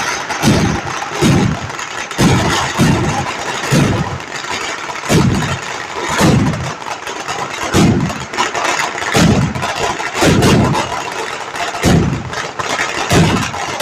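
Fireworks going off in rapid succession: deep booms at irregular spacing, roughly one a second, over a steady hiss that runs between them.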